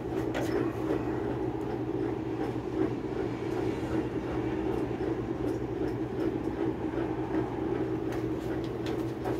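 Mabe top-load washing machine running on a test run after its wash basket was reinstalled: a steady motor hum and rumble, with a few light clicks.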